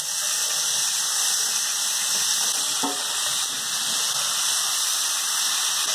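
Garlic, bay leaves, cloves and a cinnamon stick sizzling steadily in hot olive oil in a frying pan. The oil is hot enough that the garlic is already overcooking.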